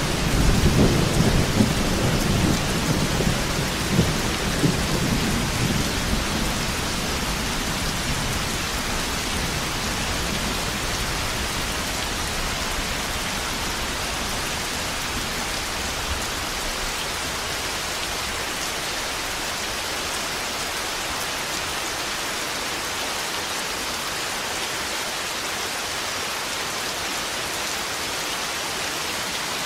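Steady rain falling hard, a constant even hiss. A low rolling rumble of thunder sits under it for the first several seconds and fades away.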